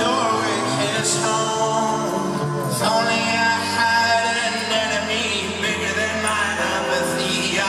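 Folk-rock band playing live, with a male voice singing over the instruments.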